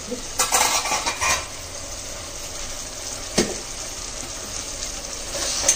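Chopped torai (ridge gourd) sizzling in a steel kadai on high flame as it cooks in the water it has released: a steady hiss. A few loud clatters come about half a second in, and there is a single sharp knock a little after three seconds.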